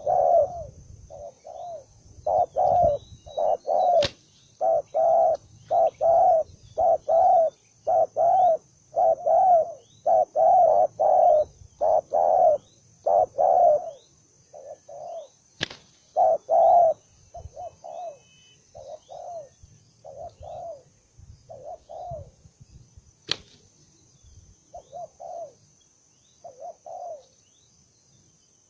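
Spotted dove cooing over and over in quick runs of short coos, thick in the first half and thinning out later: the aggressive, combative calling of a dove at a decoy. A steady high tone runs underneath, and three sharp clicks fall about 4, 16 and 23 seconds in.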